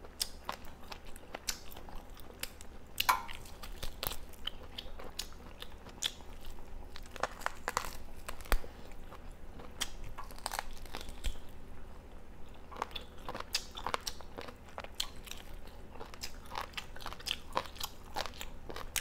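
A person biting and chewing duck thigh meat off the bone, with many short, irregular mouth clicks throughout.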